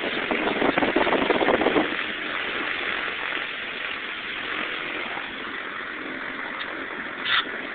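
Cessna 310R's twin piston engines running, heard inside the cabin, louder for about the first two seconds and then steady. A short high blip sounds near the end.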